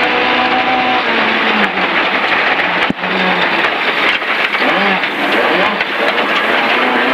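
Ford Escort Mk1 rally car's engine heard from inside the cabin, over dense mechanical and road noise. The revs hold steady at first, break off briefly about three seconds in, then rise and fall.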